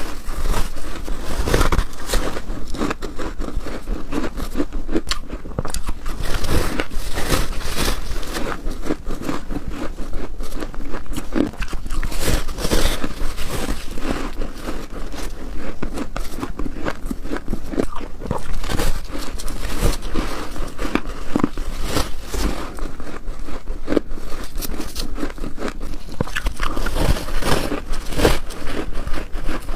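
Close-miked bites into soft, squeaky freezer frost and shaved ice, a continuous run of irregular crunching and crackling crushes.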